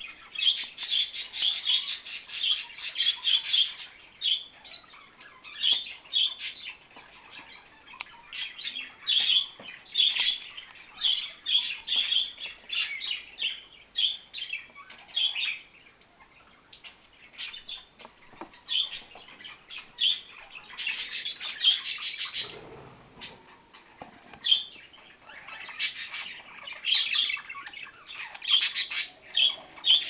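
Pet budgerigars chattering: bouts of rapid, short chirps and warbles with short pauses between them. A brief low flutter or bump about three-quarters of the way through.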